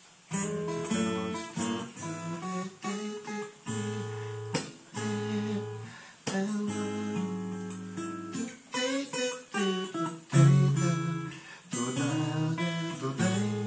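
Acoustic guitar played solo: a melodic line picked over held bass notes and chords, with a loud strummed chord about ten seconds in.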